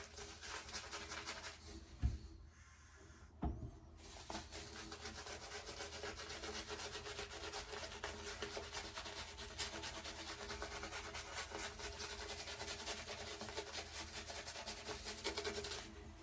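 Shaving brush worked against the skin, lathering shave-stick soap: a steady, rapid bristly rubbing. It dips to a brief pause with two light knocks about two to four seconds in, then carries on evenly.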